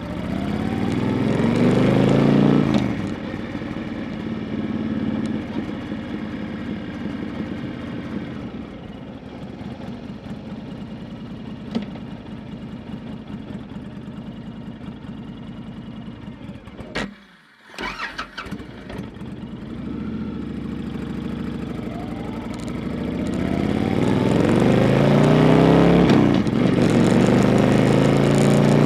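2012 Honda Fury's 1312 cc V-twin motorcycle engine and exhaust accelerating with rising pitch, then running steadily for a long stretch. It cuts out briefly partway through, then pulls up through the revs again, louder, near the end.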